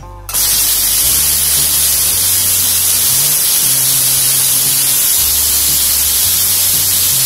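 Stainless steel pressure cooker letting off its steam in a loud, steady hiss as its whistle weight is lifted with a spoon, releasing the pressure after cooking. The hiss starts suddenly just after the start.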